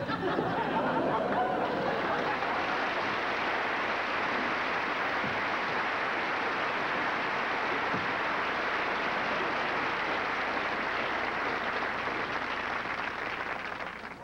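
Studio audience applauding at the end of a sitcom scene, a steady, dense clapping that dies away near the end.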